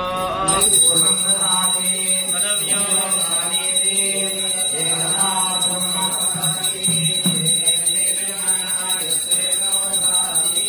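Devotional singing of an aarti hymn, with a temple hand bell rung rapidly and without pause from about half a second in, as the lamp is waved before the deity.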